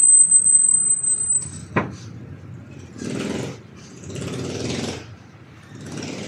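A power tool with a high whine runs and stops about a second and a half in, followed by a sharp click. Then come three short, rough scraping sounds from work on a wooden cabinet.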